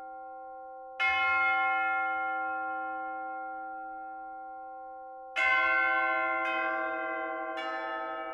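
Church bells being struck: one bell strike about a second in, left to ring and die away for several seconds, then from about five seconds in three more strikes about a second apart on bells of different pitch, ringing over one another.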